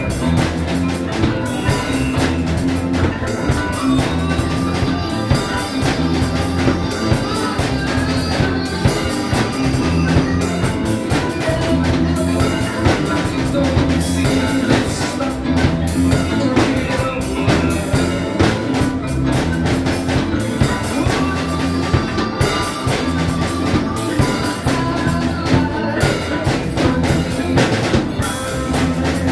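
A Kobra Kabana drum kit played in a steady groove of bass drum, snare and rimshot hits, over a rock backing track with bass and guitar.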